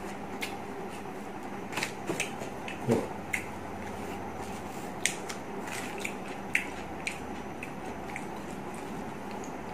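A person eating rice by hand from its paper wrapping: scattered short chewing smacks and rustles of the wrap, about ten in all, over a steady background hum.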